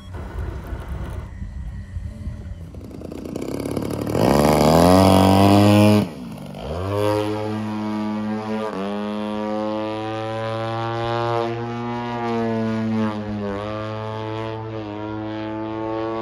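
DA-120 twin-cylinder two-stroke gas engine of a giant-scale RC aerobatic plane: low idle at first, then revved up hard and loud about four seconds in. After a sudden break the engine and propeller are heard in flight, the note sweeping up and down in pitch as the plane manoeuvres.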